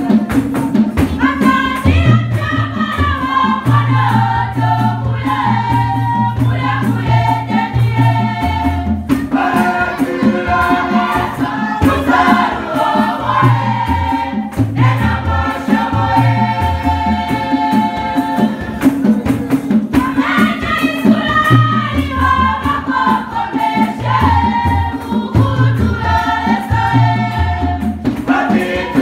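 Women's choir singing together in several voices, with a steady beat running under the song.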